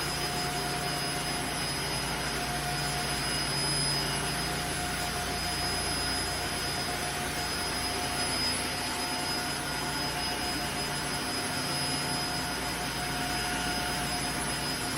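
Tineco Floor ONE S3 cordless wet-dry floor cleaner running, its suction motor giving a steady whine over a rush of air.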